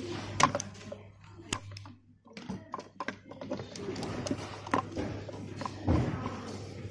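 Scattered light clicks and knocks of parts and tools being handled during work on an inflatable spa heater, over a faint steady low hum.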